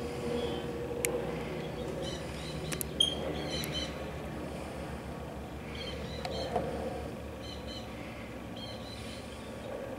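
A flock of plumed whistling ducks giving short, high whistling calls in scattered clusters. A few sharp clicks come through as well, the loudest about three seconds in.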